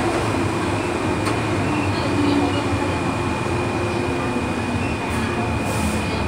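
MTR M-train electric multiple unit running through a tunnel, heard from inside the car: a steady rumble of wheels and motors with a thin, steady high-pitched whine above it.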